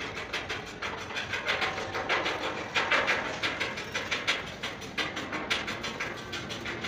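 A rapid, uneven clatter of clicks and knocks, several a second, over a steady background noise.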